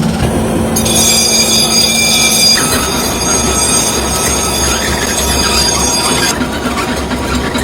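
High-pitched metallic squeal of a tool working a bronze temple bell, over the steady noise of workshop machinery. The squeal starts sharply about a second in and cuts off about six seconds in.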